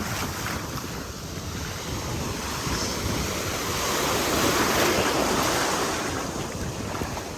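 Ocean surf washing ashore, swelling to its loudest about halfway through and then easing off, with wind buffeting the microphone.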